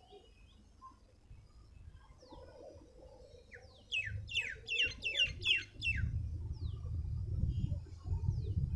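A bird calling: a quick run of about seven high notes, each sweeping downward in pitch, in the middle, with a few single thin downslurred notes before and after. A low rumble on the microphone builds through the second half.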